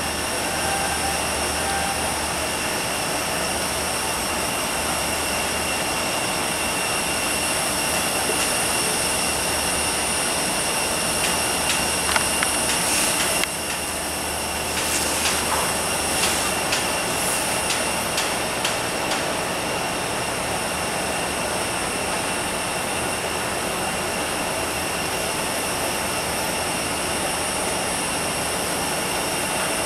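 Airbus A320 standing at the gate with its auxiliary power unit running: a steady whine made of several constant high tones over an even rumble. A few faint clicks and knocks come about halfway through.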